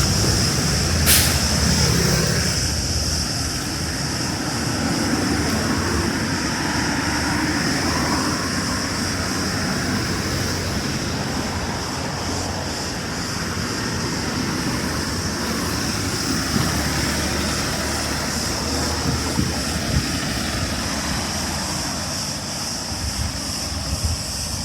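Cicadas buzzing in a steady, high-pitched chorus, over a low rumble that is loudest at the start and fades over the first few seconds. A single sharp click comes about a second in.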